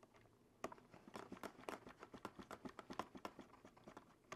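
Faint, irregular run of small clicks and taps from hands handling and working on a hard plastic 1/18-scale RC truck body shell, starting a little under a second in.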